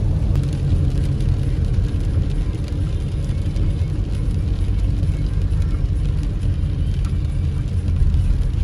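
A car driving on a wet road, heard from inside the cabin: a steady low road and engine rumble with tyre noise.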